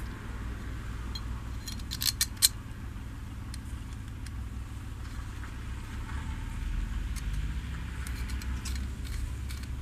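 Small steel parts clinking and clicking as a bolt, nut and flat steel bracket are handled and fitted together. A quick cluster of sharp metal clicks comes about two seconds in, with a few lighter clicks near the end, over a steady low hum.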